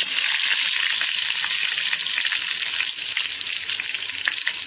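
Tempering of mustard seeds, urad dal, dried red chili, curry leaves and ginger sizzling steadily in hot oil in a pan, with scattered small crackles and pops as it fries.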